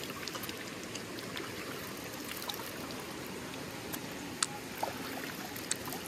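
Shallow stream running over rocks, a steady rush of water, with a few brief splashes in the second half as water is scooped up by hand and splashed onto the face.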